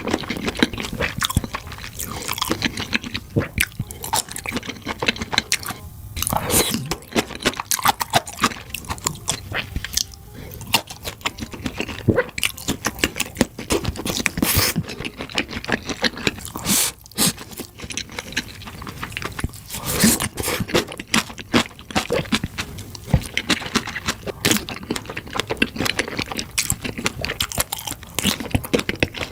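Close-miked chewing and biting of sausages: a dense, irregular run of sharp, crunchy clicks and wet mouth sounds as the casings are bitten through and chewed.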